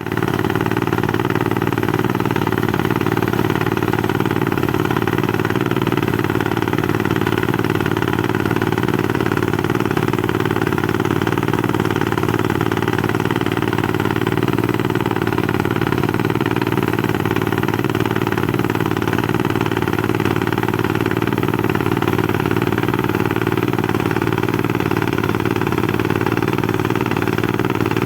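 Blasthole drilling rig at an iron ore mine running steadily: a loud, unbroken machine drone with no change in pace.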